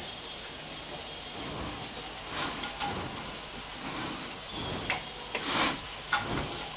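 Steady hiss of steam rising through the perforated base of a clay steaming pot from water boiling below. A few faint, brief handling sounds come through as pieces of rice dough are set in.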